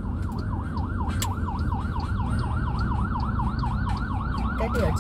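An emergency vehicle's siren in a fast yelp, its pitch sweeping up and down about four to five times a second, over a steady low engine and road rumble.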